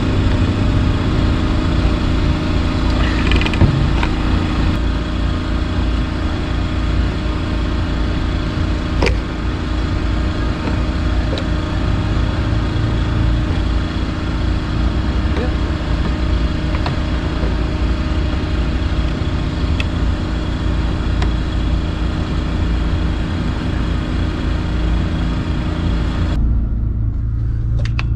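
An engine running steadily at constant speed, a low, even drone with a fixed hum. It drops away sharply near the end.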